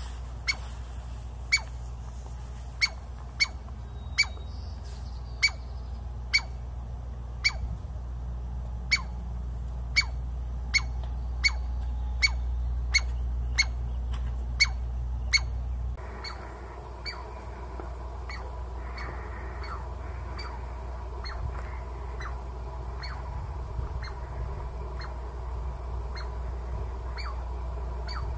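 Douglas squirrel barking: a long run of sharp, short calls repeated about once a second. The calls become fainter about sixteen seconds in.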